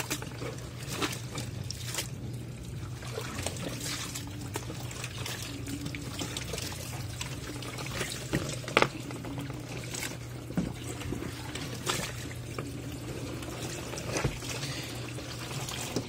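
Water pouring, dripping and splashing off soaked bath towels as they are lifted by hand out of a twin-tub washing machine's wash tub and packed into its spin basket, with a low steady hum underneath.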